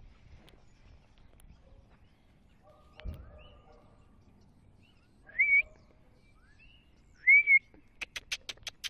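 A person whistling to call a dog: two short whistles, each sliding up and then holding. Then a quick run of about seven sharp clicks, like kissing or tongue-click calls.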